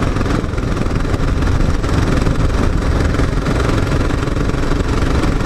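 Motorcycle engine running steadily while being ridden, with a dense, even rush of engine and road noise.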